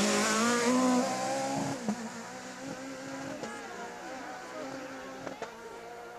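Rally car engine revving hard as the car accelerates past at full throttle. It then shifts up a few times and pulls away, its note fading into the distance.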